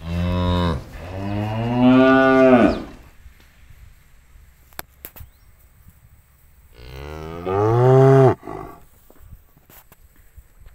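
Cattle mooing: a short moo and then a longer, drawn-out one that drops in pitch at its end, and a further moo about seven seconds in.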